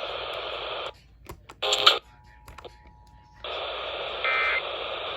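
Steady hiss from a radio receiver with no program audio. It cuts out for about two and a half seconds, during which there are a few clicks, a short loud electronic beep and a faint steady tone. When the hiss comes back there is another short beep about four seconds in.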